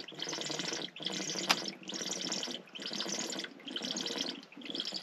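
Ice-cold water glugging out of a bottle in a regular run of glugs, about one every three-quarters of a second, with a single click about a second and a half in.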